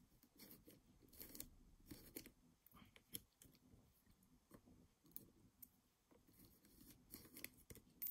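Faint, scattered small clicks and scrapes of metal parts on a Brother KH840 knitting-machine carriage as fingers press a latch piece down to seat it, with a slightly louder cluster of clicks near the end.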